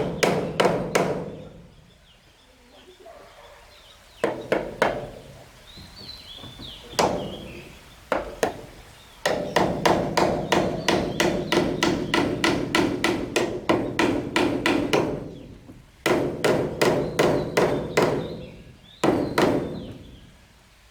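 Rapid repeated blows on wood, about four or five a second, coming in runs of several seconds with short pauses between them.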